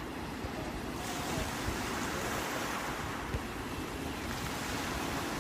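Sea waves washing onto the shore in a steady wash, swelling about a second in, with some wind on the microphone.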